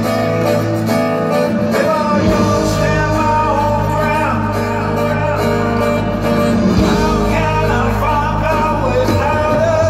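Live rock band playing: sung vocals over electric bass, guitar and drums, with sustained chords.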